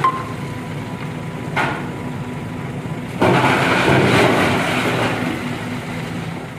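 Diesel truck engine running steadily, with a louder rushing noise swelling in about three seconds in and fading over the next two seconds.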